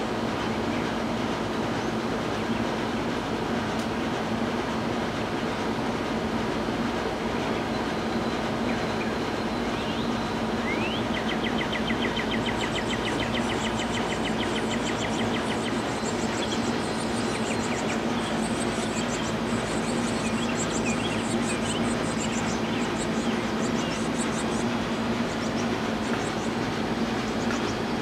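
Steady, even mechanical rumble with a low hum, unbroken throughout. From about eleven seconds in, faint rapid bird trills come and go over it.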